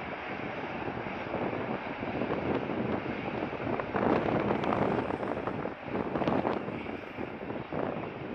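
Boeing 777's jet engines running hard during the landing rollout, with reverse thrust blowing up dust. The noise swells to its loudest about four seconds in, with gusts of wind on the microphone.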